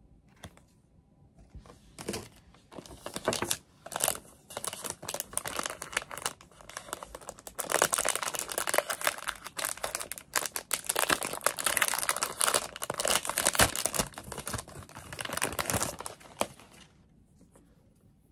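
Thin clear plastic wrapper crinkling and tearing as a roll of masking tape is unwrapped by hand. The rustling comes in uneven bursts, busiest in the middle, and stops shortly before the end.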